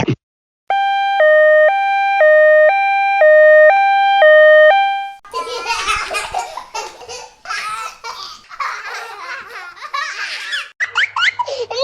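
A steady electronic two-note tone switching between a higher and a lower pitch about twice a second for several seconds. Then a baby laughing in giggles and squeals, turning near the end into high gliding baby coos.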